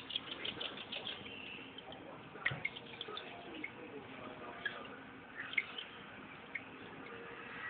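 Aquarium water trickling and bubbling, with many small irregular drips and pops; a few louder pops come about a third of the way in and again past the middle.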